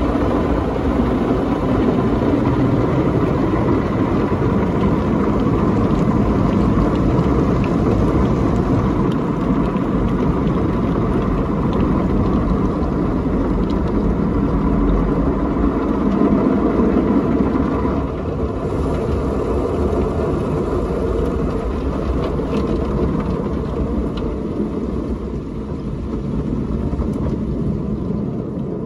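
Drive-through car wash machine working over the car, heard from inside the cabin: a steady rush of water spraying on the windshield, then the drying stage as the glass clears. The noise drops a step about eighteen seconds in and eases further near the end.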